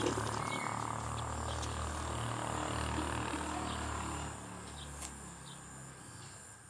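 Low engine drone with a rushing hiss that fades away about four and a half seconds in, with a sharp click about five seconds in.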